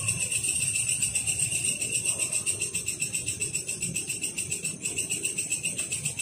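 Steady, fast-pulsing jingling and chirring: night insects in the undergrowth mixed with distant music with tambourine-like jingling percussion, of the kind heard from a nearby maulid religious gathering.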